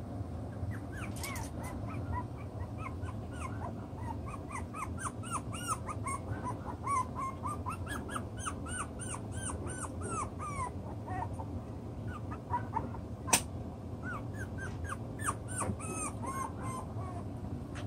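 Six-week-old toy poodle puppies yipping and whining in a rapid string of short, high-pitched, falling calls as they play-fight, the calls thinning out briefly around the middle. A single sharp click about two-thirds of the way through is the loudest sound.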